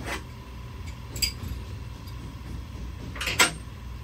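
Metal tools and parts clinking against each other and the steel engine cart: a few short, sharp clinks, the loudest a double clink about three and a half seconds in, over a steady low shop hum.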